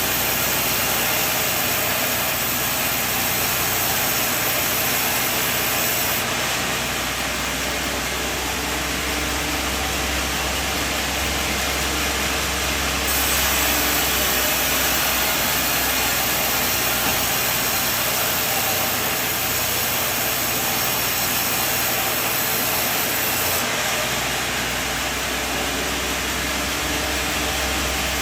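Sawmill machinery running steadily, a dense mechanical noise with a low hum. Its character shifts abruptly three times.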